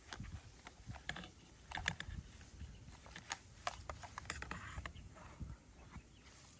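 Faint, irregular clicks and taps of plastic toy guns being handled.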